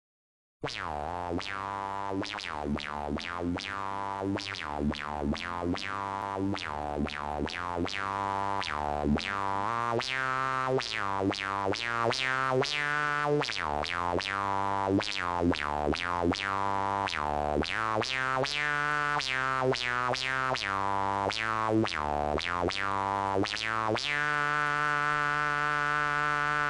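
Background music of quick, sharp-attack pitched notes over a steady bass line, changing near the end to a long held chord.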